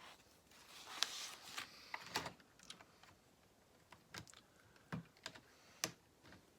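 Lego plastic pieces being handled and pressed into place on a model: a handful of scattered, sharp plastic clicks with light handling noise between them.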